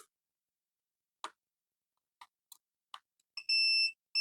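Digital multimeter's continuity beeper sounding once for about half a second near the end, after a few faint clicks: the laptop's 19-volt rail is shorted to ground.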